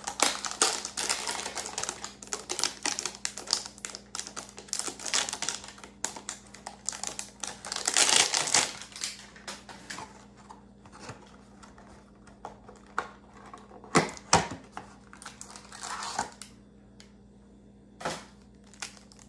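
Plastic-wrapped trading card packs and boxes being handled on a table: a dense run of crinkling, rustling and clicks for about the first half, loudest about eight seconds in, then scattered taps and clicks with a couple of sharp knocks later on.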